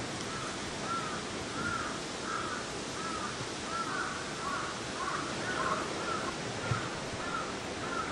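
A bird calling over and over, a short rise-and-fall call about every two-thirds of a second. There is a single soft thump late on.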